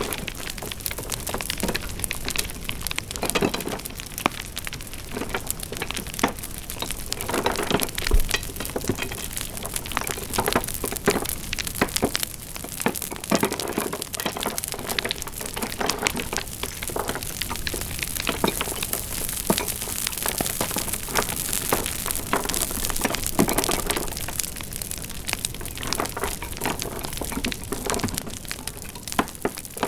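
Wood fire crackling, with frequent irregular pops and snaps over a steady hiss.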